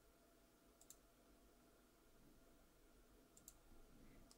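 Near silence with a few faint computer mouse clicks: one about a second in and two close together near the end.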